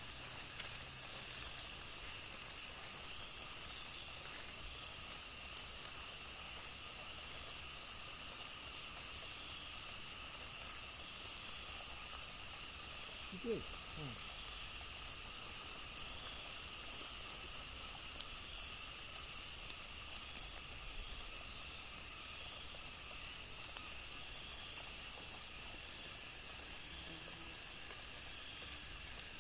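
Steady night chorus of insects in tropical forest: several unbroken high-pitched drones layered together. About halfway through there is a single short falling call.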